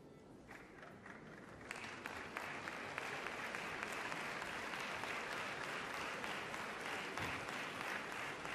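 Audience applauding. A few scattered claps start about half a second in, and the applause swells to full, steady clapping a little over a second later.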